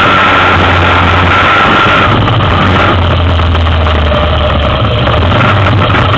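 2003 Yamaha Big Bear 400 ATV's single-cylinder four-stroke engine running steadily as the quad drives through a shallow rocky stream, with water splashing around the wheels.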